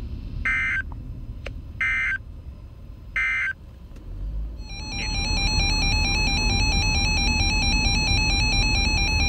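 Three short data bursts of an Emergency Alert System end-of-message code (SAME "NNNN"), each about a third of a second long and just over a second apart, marking the end of the warning. About five seconds in, a loud continuous electronic tone signal begins and runs on.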